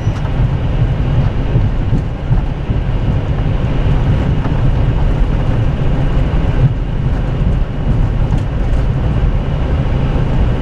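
Steady low rumble inside an Airbus A320 cockpit during the landing rollout: the wheels and airframe running along the runway.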